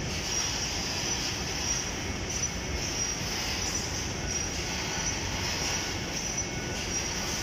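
Steady industrial machinery noise with a high hiss, and a thin high whine that comes and goes every half second or so.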